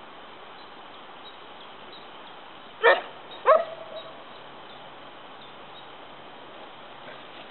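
A small black dog barks twice, two short barks about half a second apart.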